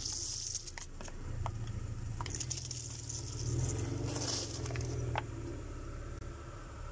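A car engine running low as the car rolls slowly, with crackling and several sharp cracks as objects break under its tyres; the clearest crack comes about five seconds in.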